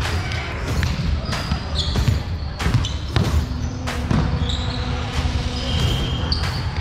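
Indoor volleyball being played on a hardwood court: a string of sharp knocks as the ball is hit and lands, with short high squeaks from shoes on the floor, echoing in a large hall.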